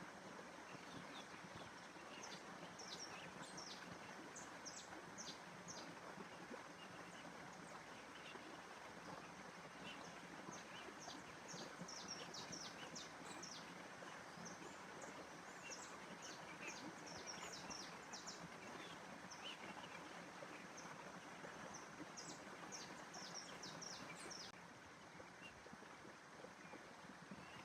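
Faint nature ambience: a steady, even rushing noise with clusters of short, high bird chirps scattered through it, busiest in the middle and shortly before the end. The rushing drops a little near the end.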